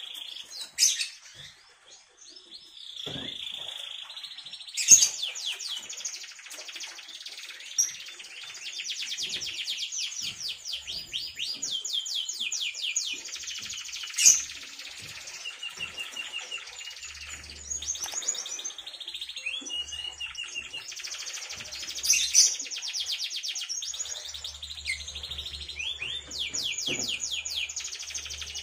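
A young domestic canary, about three months old, singing: after a couple of brief chirps, long runs of fast rolling trills start about three seconds in and carry on, with a few sharp, loud single notes standing out.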